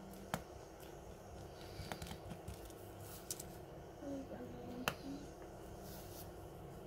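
Small clicks and taps of a precision screwdriver working the screws and plastic midframe of a phone being taken apart, with one sharper click about five seconds in.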